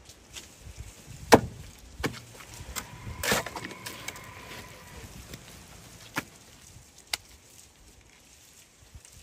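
Scattered knocks and thuds as wet clay-and-straw mix is handled between a metal wheelbarrow and a wooden carrying board, the sharpest about a second in. A knock about three seconds in is followed by a brief steady ringing tone.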